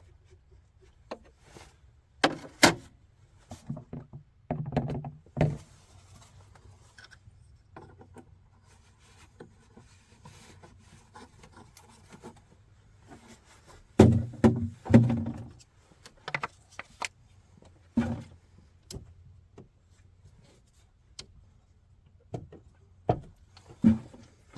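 Scattered metallic clicks and clanks of hand tools being handled on an engine, with a quick cluster of knocks about two-thirds of the way through, over a faint steady low hum.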